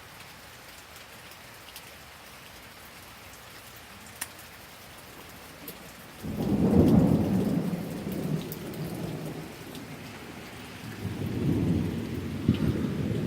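Steady rain falling, with a few drops ticking, then thunder breaks in suddenly about six seconds in: a loud low rumble that swells and slowly dies away, rising again near the end with a sharper crack.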